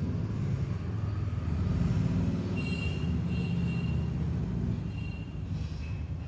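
Steady low rumble of background noise, swelling a little about two seconds in, with faint high-pitched tones in the middle.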